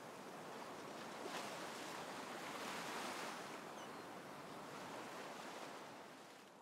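Gentle surf washing against a stony shore, swelling and easing, fading out near the end.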